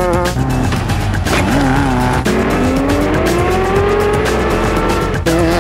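Off-road race truck engines revving hard over background music, in quick edited cuts. From about two seconds in, one engine climbs steadily in pitch as it accelerates.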